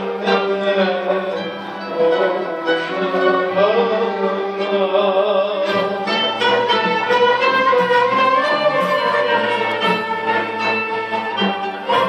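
Turkish classical music ensemble playing a song in makam Hicaz, usul Düyek, with bowed strings to the fore.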